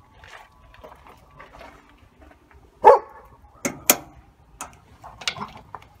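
A dog barks once about halfway through, followed within a second by two sharp clicks close together, with a few fainter sounds near the end.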